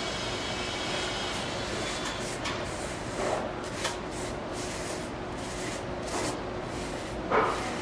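Steady room noise with a faint low hum, broken by a few short soft knocks, the loudest near the end.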